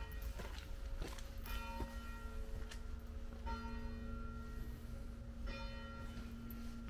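A church bell tolling slowly: three strokes about two seconds apart, each one ringing on into the next. Footsteps on stone paving click between the strokes.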